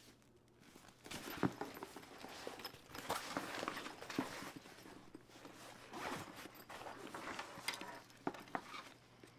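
Zipper on a soft-sided disc golf cooler bag being worked open, with fabric rustling and small clicks as the bag's top section is pulled up and folded over. The rasping comes in several bouts, starting about a second in and dying away near the end.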